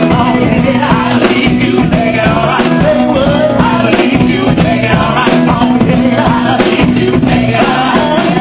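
Live band music with a lead vocalist singing over drums and bass, loud and steady throughout.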